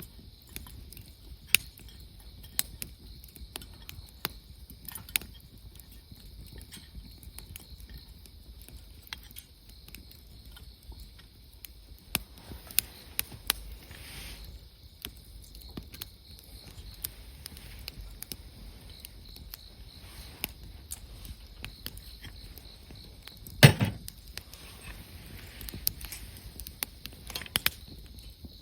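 Wood campfire crackling, with irregular sharp pops and snaps from the burning wood. One louder thump comes about 24 seconds in.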